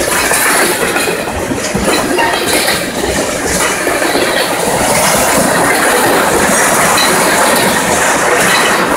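Railroad tank cars of a long freight train rolling past close by: a loud, steady rumble and rattle of steel wheels on rail, with clicking as the wheels run over rail joints.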